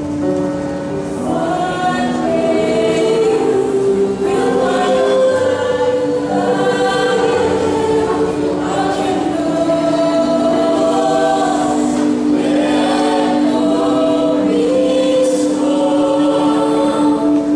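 Mixed choir of women's and men's voices singing in harmony, with long held chords beneath moving melody lines.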